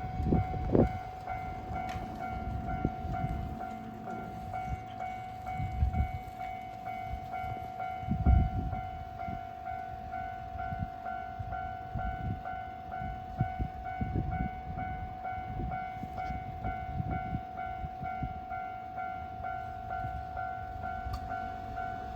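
Japanese railway level crossing warning bell ringing, a steady electronic tone pulsing quickly over and over, with irregular low rumbles underneath that swell strongest about eight seconds in.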